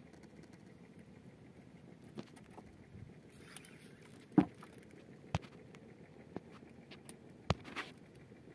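A few sharp clicks and knocks at irregular intervals, the loudest about four seconds in, over a low steady hiss.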